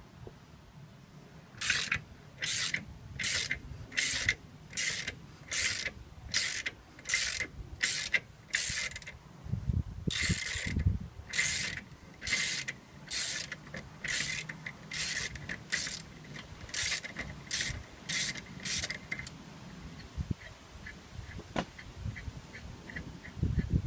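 Ratchet wrench being worked back and forth in short, even strokes, a little more than one a second, to run in a fastener. It stops for a moment with a low knock about ten seconds in, then carries on until about nineteen seconds. Faint quick ticks follow.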